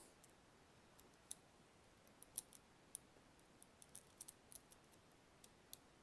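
Faint, irregular metallic clicks of a pick raking the pin stacks of a brass circular dimple padlock held under tension with a pry bar: pins setting as the lock is picked.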